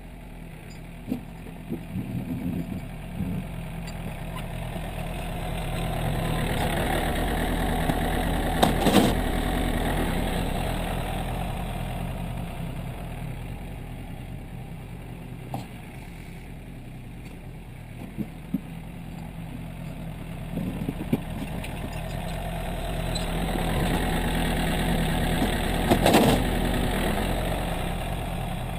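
John Deere 770 compact tractor's three-cylinder diesel engine running steadily as it plows snow with its front loader bucket. It gets louder twice as the tractor comes close, each time with a sharp knock.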